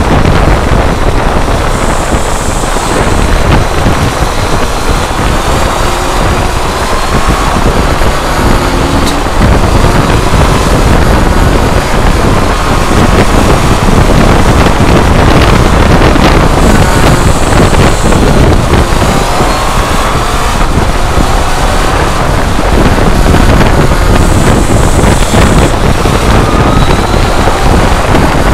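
Wind buffeting a motorcycle-mounted camcorder's microphone at road speed, with the motorcycle's engine running underneath and its note rising a few times as it accelerates.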